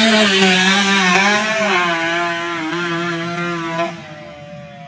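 Motocross dirt bike engine running hard close by, its pitch wavering as the throttle opens and closes. About four seconds in it gives way abruptly to a fainter dirt bike engine farther off, its note slowly falling.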